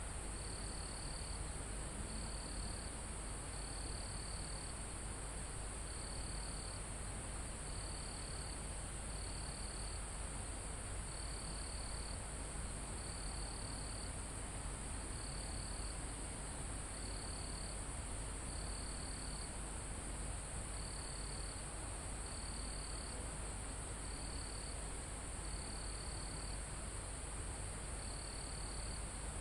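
Crickets and other insects calling: a steady high shrill drone, with short cricket trills repeating roughly every second and a half over it, and a low even rumble of light wind beneath.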